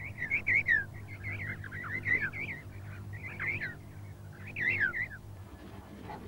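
Emperor penguin chicks calling: about four bursts of high, warbling whistles, stopping about five seconds in.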